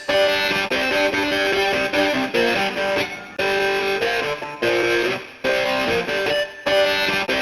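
A Samsung SGH-series phone ringtone played from a SMAF (.mmf) file: a synthesized melody with plucked, guitar-like notes in short repeating phrases, with brief pauses between them.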